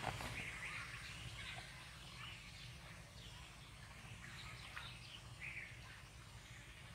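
Outdoor rural ambience: scattered short bird chirps over a faint, steady low rumble.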